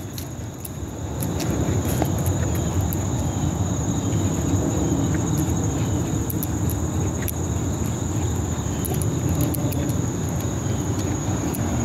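Insects chirring steadily, a thin high drone, over a steady low rumble with a few scattered clicks.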